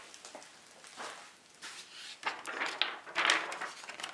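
Rustling and crinkling of a thin plastic sheet of 5-micron honing film being handled and flexed, in several irregular bursts that get louder in the second half.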